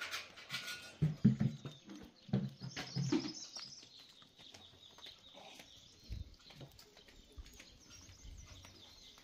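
Animal calls: a few loud low calls about a second in and again around two and three seconds, with brief high chirps, then quieter with scattered faint clicks.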